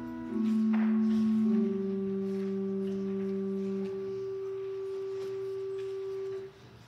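Organ playing slow held chords in soft, flute-like tones, the notes stepping down in pitch before a final chord is held and released about six and a half seconds in.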